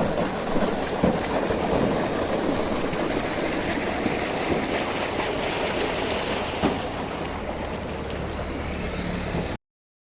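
Small tubewell running, its water gushing out in a steady rush. The sound cuts off suddenly near the end.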